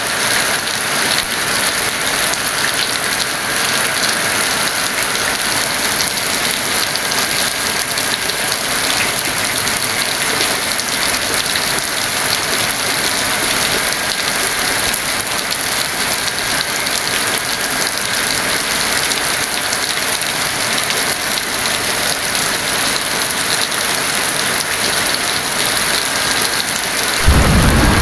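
Heavy rain falling steadily in a dense, even hiss. Near the end a low rumble of thunder comes in suddenly.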